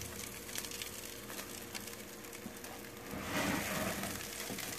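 Hot air-fried chicken wings sizzling and crackling faintly in the opened toaster oven, over a steady low hum; the sound grows louder for a moment about three seconds in.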